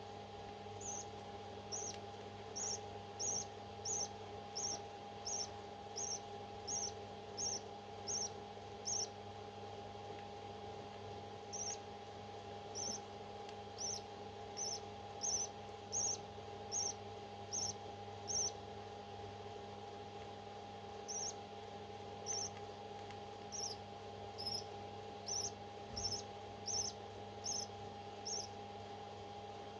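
Parrot chick giving short, high peeps, repeated about one to two a second in runs with short pauses between them, over a steady low hum.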